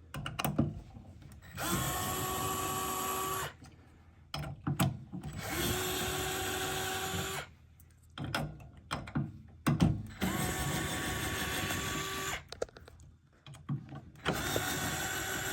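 Power drill-driver running in four bursts of about two seconds each, its motor spinning up at the start of each burst, with clicks and handling knocks in between.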